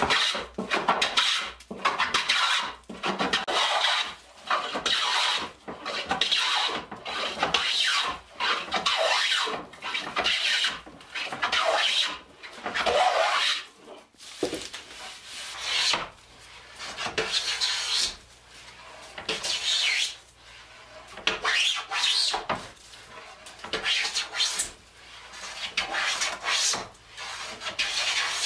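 Wooden hand plane shaving a pine board in repeated strokes, each a rasping hiss of the blade lifting a shaving, one every second or so and a little more spaced out in the second half.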